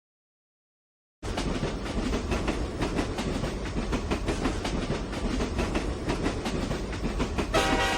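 Train sound effect: a train running along the track with a steady low rumble and rapid wheel clatter, starting after about a second of silence. A short pitched tone comes in near the end.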